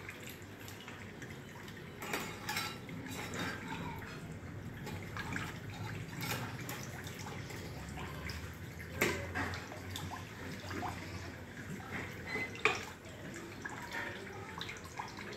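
Chain-link mesh wiring machine being worked by hand: irregular metallic clicks and taps of wire being fed and handled, over a low steady hum, with a sharper knock about nine seconds in and another later on.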